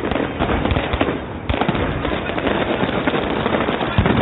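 Fireworks going off: a dense run of crackles and bangs, with a loud bang near the end.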